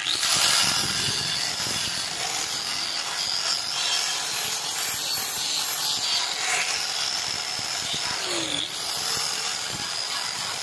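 Angle grinder grinding steel, starting suddenly and running steadily with a high whine as the disc works the metal.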